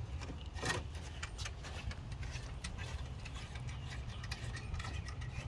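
Scattered light clicks and taps of hardware and plastic parts being handled at a truck's front end, over a steady low hum.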